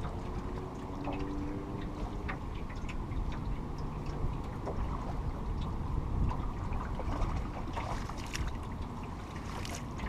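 Boat drifting on river current, with a steady low rumble of water against the hull and scattered small clicks and knocks. A faint thin whine is heard in the first couple of seconds.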